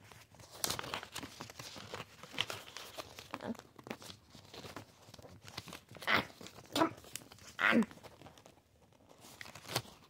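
A paper note crinkling and rustling as it is unfolded and handled, in many small crackles. About six to eight seconds in come three louder, short squeaks that fall in pitch.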